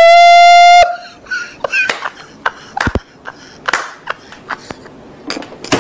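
A loud, steady horn blast fills about the first second. After it comes a man's hearty laughter in short bursts, broken by a few sharp smacks.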